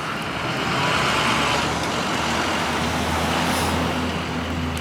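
A motor vehicle's engine running close by on the street, a steady low hum with road noise that swells about a second in and slowly fades.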